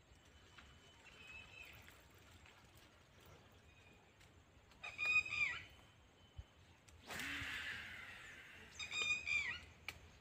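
Two bird calls about four seconds apart, each about half a second of stacked pitched notes with a falling end. Between them is a brief rush of noise lasting about a second.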